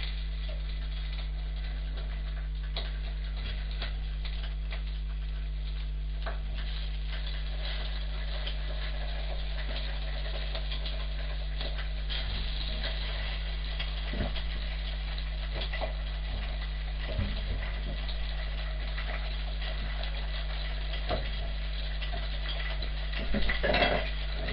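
Pork ribs browning in fat in a pan with a steady sizzle over a constant low electrical hum. Scattered knocks and clatter of kitchen utensils, with a louder clatter near the end.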